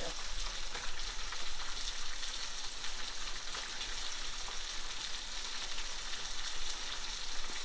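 Chicken frying in hot oil in a skillet: a steady sizzle with many fine crackles.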